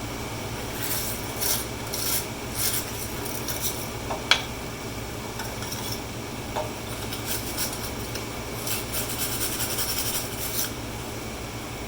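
Wire brush scrubbing rust off steel body-support brackets in repeated short scratchy strokes, growing quicker and denser near the end. A single sharp click about four seconds in is the loudest sound.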